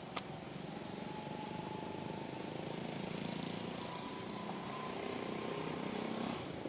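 A motor engine running steadily, with a faint, slowly rising whine; it grows a little louder, then cuts off suddenly near the end.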